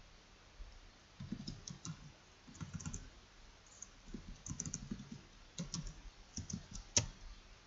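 Typing on a computer keyboard in a few short runs of keystrokes, with one sharper click near the end.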